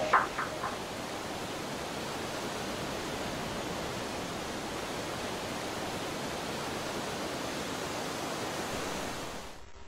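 Steady, even rushing noise with no rhythm or pitch, fading away near the end; at the very start the last notes of music die away.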